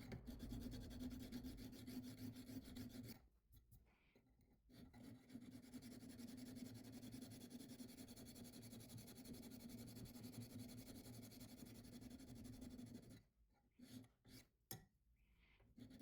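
Coarse sandpaper backed by a file rubbing side to side on a steel knife blade: faint, steady hand-sanding strokes that stop twice, briefly a few seconds in and again near the end.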